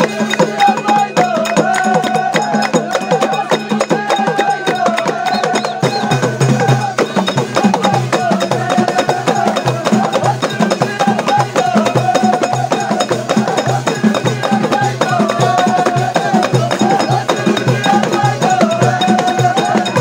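Traditional folk music: a wavering melody line over hand-clapping and percussion, with a steady low drum beat coming in about six seconds in.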